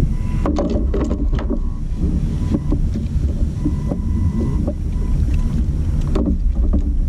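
Wind buffeting the microphone with a steady low rumble, over scattered clicks and knocks as a redfish and fishing gear are handled aboard a plastic kayak, bunched about half a second to a second and a half in and once more near the end.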